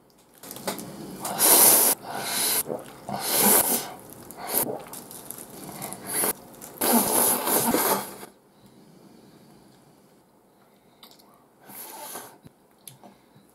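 A man slurping ramen noodles in a run of loud, hissing slurps, then chewing quietly from about eight seconds in, with one more short slurp near the end.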